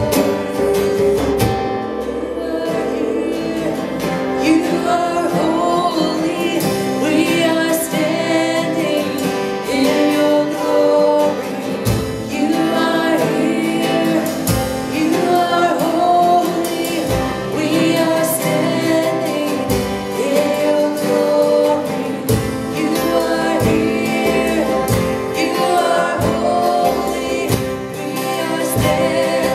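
A woman singing a worship song live, accompanied by strummed acoustic guitars, with a djembe beating time.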